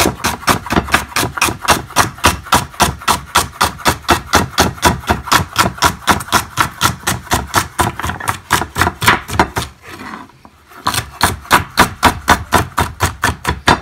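Chef's knife chopping celery stalks on a wooden cutting board: quick, even strokes at about five a second, breaking off for about a second roughly ten seconds in and then starting again.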